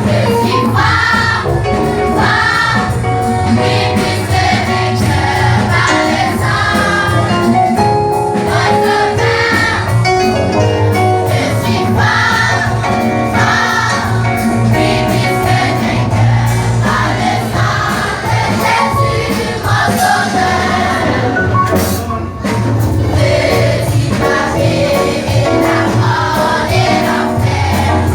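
Church choir singing a French gospel hymn over instrumental accompaniment with a steady bass line.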